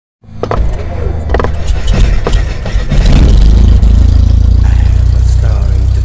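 Intro sound effect: several sharp hits in the first couple of seconds, then a loud, steady low rumble.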